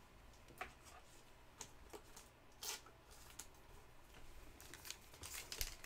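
Faint handling of basketball trading cards and a card pack: a few soft clicks and light rustling, growing busier near the end.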